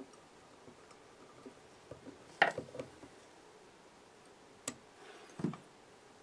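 Small sharp clicks and ticks of fly-tying work at the vise, the loudest about two and a half seconds in, another near five seconds and a duller knock near the end, as scissors trim off the waste end of the red holographic tinsel tag.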